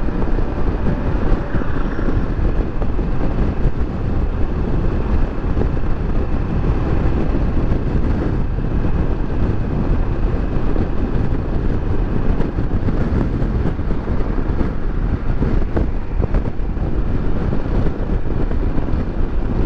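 Kawasaki Versys 650 parallel-twin motorcycle cruising at highway speed: a steady rush of wind on the microphone over engine and tyre noise.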